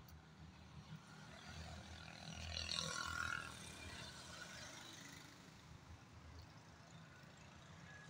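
A motorcycle passing by on the road, its sound building to a peak about three seconds in and then fading away.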